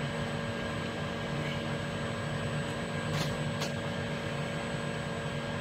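Steady hum and fan-like noise of powered-up workshop machinery, with a few steady tones, and two faint clicks a little past three seconds in.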